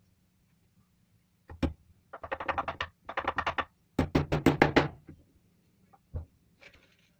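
Small hammer tapping nails into a wooden slat on a workbench: a single knock, then three quick runs of light, rapid taps, and another single knock.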